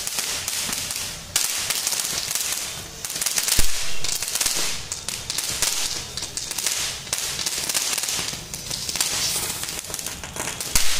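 Handheld pencil-type firework torch on a stick hissing steadily as it sprays sparks, the hiss surging and easing, with a sharp crack about three and a half seconds in and another near the end.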